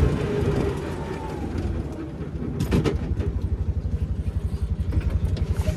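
A small vehicle engine running with a fast, even throb, after a couple of seconds of louder rumbling noise that fades out.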